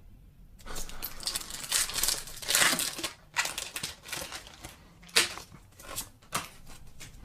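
Foil Pokémon booster pack wrapper being torn open and crinkled, followed by a few sharp snaps.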